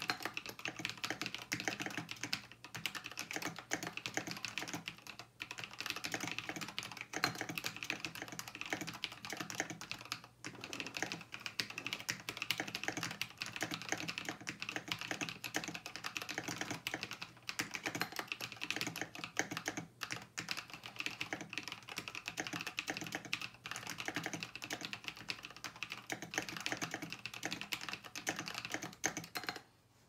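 Fast, continuous typing on a Fusion60 custom mechanical keyboard with lubed Kailh Pro Berry switches and what appears to be a brass plate: a dense, irregular run of key clacks that stops just before the end.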